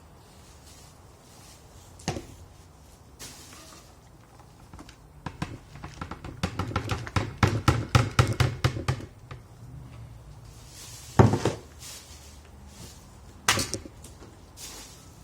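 Scattered thuds and knocks, with a rapid run of clattering knocks in the middle, loudest about two-thirds of the way through, and single sharp knocks near the start and toward the end.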